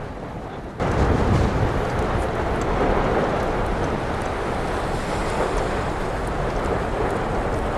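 Lava fountain at an erupting volcanic vent: a loud, steady rushing noise with scattered crackles. It starts abruptly about a second in, after a quieter hiss.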